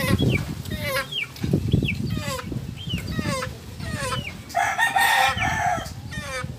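Chickens calling: short high calls repeating about twice a second, with a rooster crowing for about a second roughly three-quarters of the way through, over bursts of low rumble.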